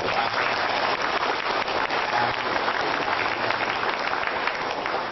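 Audience applauding with steady, dense clapping that begins to fade near the end.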